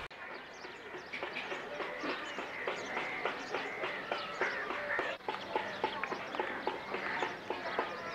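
A chorus of many small birds chirping and twittering in quick, short calls, with a faint background hum.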